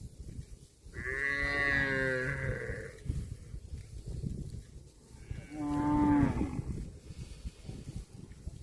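Cow mooing twice: a long call with a slight downward bend about a second in, then a shorter call past the middle.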